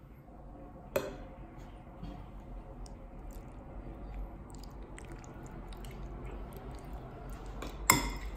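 A metal spoon stirring sour cream into a bowl of thick chili, with soft squelching and two sharp clinks of the spoon against the ceramic bowl, one about a second in and a louder one near the end.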